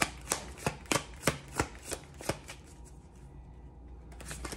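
Deck of tarot cards being shuffled by hand: a run of sharp card slaps about three a second, pausing a little past halfway, then starting again near the end.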